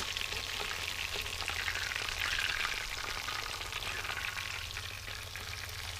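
Breaded Kentucky bass fillets frying in hot oil in a cast iron skillet: a steady crackling sizzle that swells a little midway.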